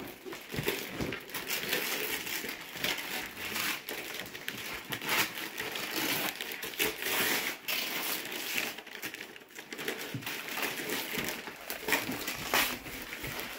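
Gift-wrapping paper being torn and crumpled as a present is unwrapped: continuous rustling and crackling with frequent sharper rips.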